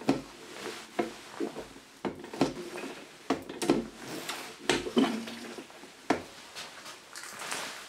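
Hand-operated hydraulic pressure test pump being worked by its lever, knocking and clunking at each stroke, about once a second, as water is pumped into the copper pipe to push out the trapped air.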